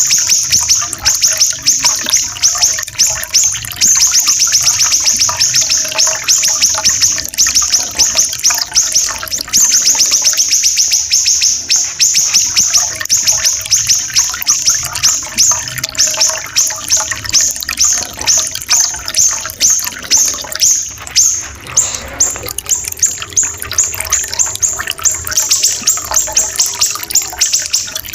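Siri-siri kecil songbird singing long, rapid runs of high, harsh repeated notes, over a steady trickling-water sound effect.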